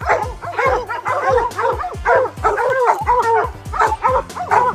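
A pack of hunting hounds barking and baying together at the foot of a tree, many dogs calling over one another without a break. This is hounds barking treed, the sign that their quarry, a bear, is up the tree.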